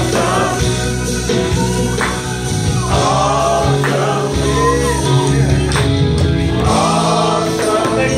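A group of men singing a gospel song together.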